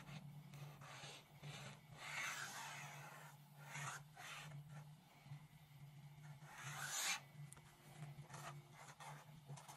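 Marker tip rubbing across paper in drawn strokes, swelling and fading with each line and loudest about seven seconds in, over a faint steady low hum.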